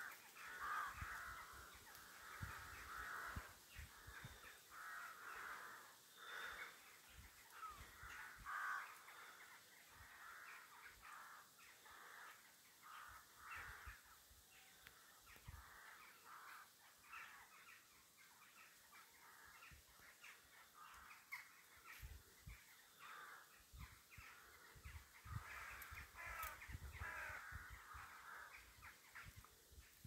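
A flock of crows cawing faintly, many calls overlapping, as they gather to roost at dusk. The calls thin out after the middle and pick up again near the end.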